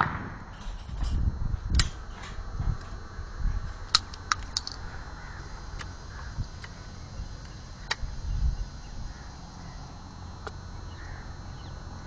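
A shotgun shot dies away at the start, then scattered light clicks and knocks follow, about half a dozen, over a low steady rumble.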